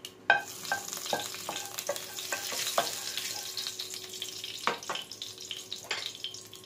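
Dried mixed herbs sizzling in hot oil in a granite-coated nonstick wok, stirred with a wooden spatula. The sizzle starts about a third of a second in, and the spatula knocks against the pan several times in the first three seconds and twice more later.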